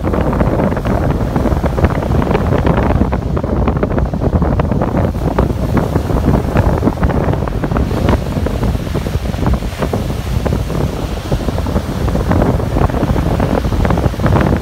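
Strong wind buffeting the microphone in uneven gusts, with waves washing in underneath.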